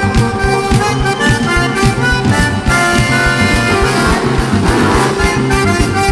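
Live rock band playing an instrumental passage led by a bayan (button accordion), with electric bass, guitar and a drum kit keeping a steady beat.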